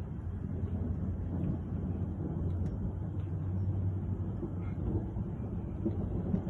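Steady low rumble with a constant faint hum and a few faint ticks.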